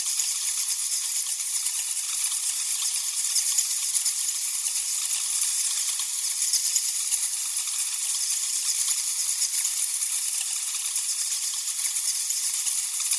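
A large colony of bats chittering and clicking: a dense, steady, high-pitched crackle of countless rapid squeaks and clicks with no low end.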